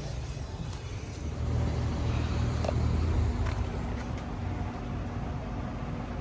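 Outdoor air conditioner condensing unit running with a steady low hum. About a second and a half in, a louder low rumble swells, then fades back after about two seconds.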